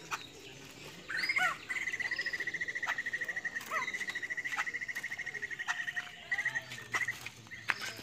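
White-crested laughingthrush calling: a few quick rising and falling notes, then a long, fast rattling trill on one pitch lasting about five seconds, with a few sharp clicks alongside.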